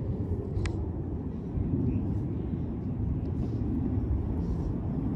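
Steady low outdoor rumble, with one brief high chirp a little over half a second in.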